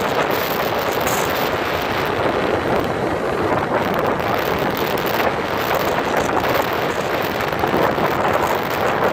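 Motorcycle under way on the road: engine running steadily under wind noise on the microphone, one dense unbroken sound.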